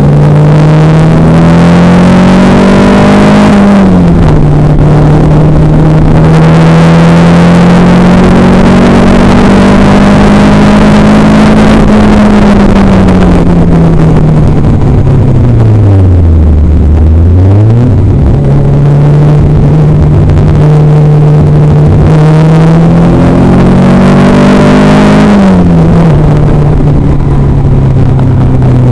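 Fisher Fury sports car's engine under hard acceleration, heard from the open cockpit, revs rising and falling with the gear changes. There is a sharp drop about four seconds in and a long steady climb. The revs then fall away to a low dip near the middle and jump quickly back up. A steady stretch follows, then another climb and a sharp drop about three seconds before the end.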